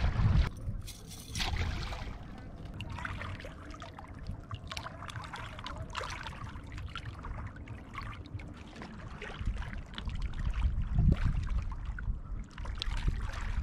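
Small lake waves lapping and splashing at a rocky shoreline in shallow water, with a steady low wind rumble on the microphone. There is a brief louder rush of splashing about a second in.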